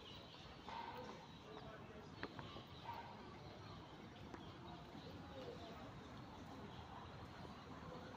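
Faint street ambience, a low steady background with one sharp tick about two seconds in.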